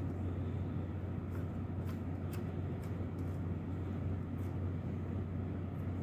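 A steady low hum, with a few faint, irregular small clicks from a screw being backed out of the metal case of a small computer module.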